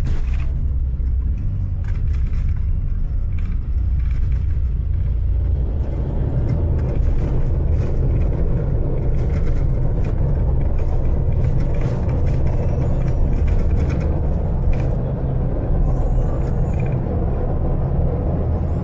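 Airliner cabin noise as the jet rolls along the runway after landing: a loud, steady low rumble from the engines and the rolling aircraft, with a rushing noise that grows louder about six seconds in.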